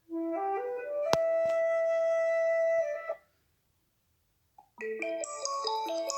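Alcatel 3T 8 built-in ringtones: a flute-like phrase of notes stepping upward onto a long held note, with a sharp click about a second in, stopping after about three seconds. After a pause of about a second and a half, a different ringtone starts, a quick run of bright chiming notes.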